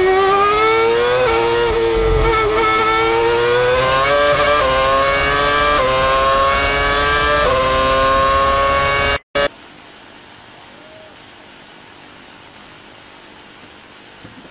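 Onboard sound of a Ferrari F2012 Formula One car's 2.4-litre V8 at full throttle, its pitch rising as it accelerates, with four quick upshifts from second to sixth gear. The engine cuts off suddenly about two-thirds of the way through, giving way to a quiet steady hiss.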